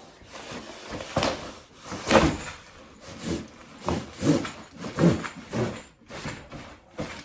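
Flat-pack furniture panels and cardboard packing scraping and sliding as they are pulled out of a cardboard box: a run of short scrapes and knocks, the loudest about two seconds in.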